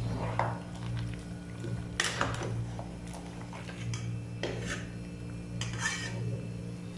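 Metal cooking utensils knocking and scraping against the side of a stainless steel stockpot as a thick, chunky stew is stirred, with several sharp clanks.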